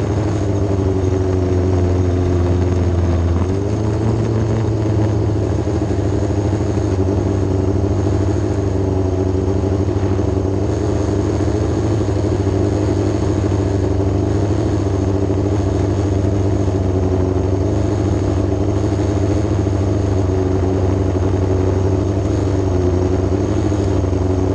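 Yamaha R6 inline-four motorcycle engine in a micro sprint car running at a steady idle, with a brief rise in revs about three to four seconds in.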